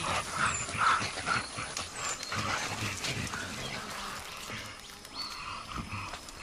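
Young mountain gorillas calling as they play: a quick run of short calls in the first second and a half, then more near the end.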